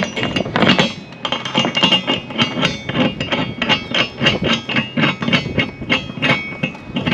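Rapid, fairly regular metal-on-metal clinking, about three to four strikes a second with a ringing tone, from the anchor, chain and new swivel hardware being worked at the bow.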